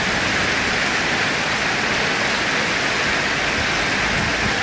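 Heavy rain pouring down in a dense, steady hiss. A low rumble comes in near the end.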